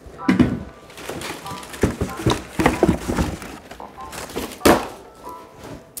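Knocks and thumps of leather boots and a cardboard box being handled and set down, with one loud knock about three-quarters of the way through.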